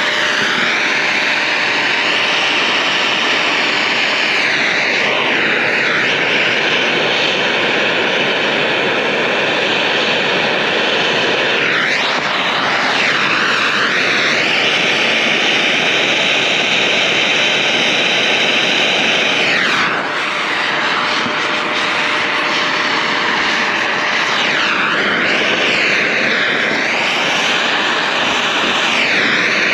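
A loud electric motor running with a rushing hiss, its pitch dipping and recovering several times.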